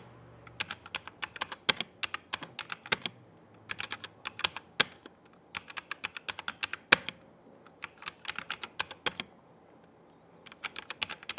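Typing on an E-YOOSO Z11 mechanical keyboard with Huano red linear switches and PBT keycaps: runs of quick key clicks broken by short pauses, with a quieter gap of about a second near the end.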